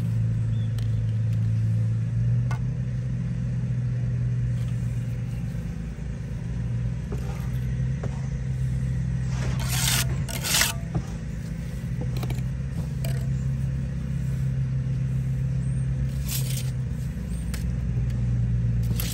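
An engine runs with a steady low drone throughout. Over it come a few sharp scrapes and taps of a steel brick trowel on brick and mortar, loudest about ten seconds in and again a little later.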